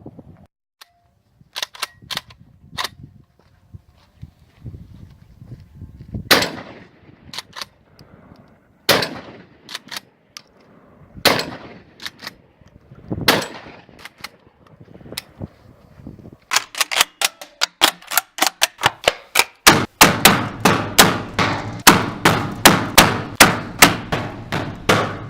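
Straight-pull bolt-action shotgun firing: a few light clicks, then single loud shots a couple of seconds apart, then a fast string of shots, about two to three a second, in the last third.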